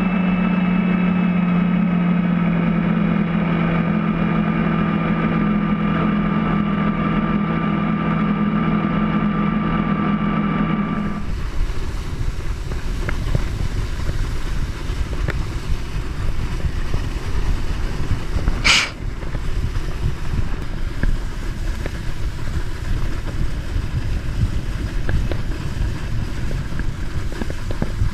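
Ski boat's inboard engine running steadily at towing speed, a steady hum with overtones over the wash of the wake. About eleven seconds in the sound changes to wind and water spray rushing past, heard from behind the boat at the tow handle, with no engine audible; one short knock comes about halfway through the rushing part.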